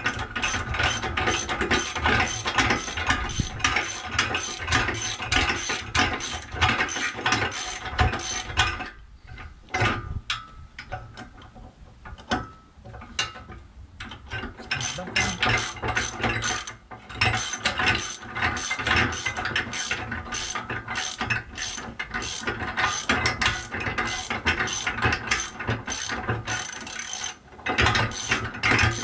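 Socket ratchet clicking rapidly as it is swung back and forth, tightening nylock nuts onto bolts through a steel mounting plate. The clicking thins out for a few seconds about nine seconds in, then picks up again.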